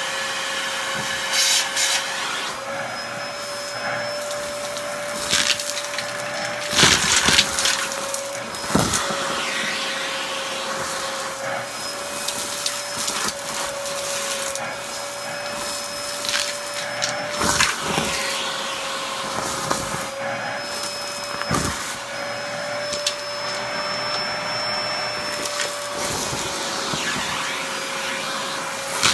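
Vacuum cleaner running with a steady whine as its head is pushed over a shag rug, sucking up dirt, lint clumps and small bits of debris. Sharp crackles and ticks come several times as hard grit rattles up the wand.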